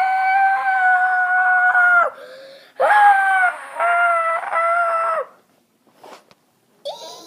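A loud, high-pitched vocal shriek held at one pitch for about two seconds. After a short break comes a second shriek that breaks into three pieces, each sagging in pitch at its end, made as a deliberately annoying sound.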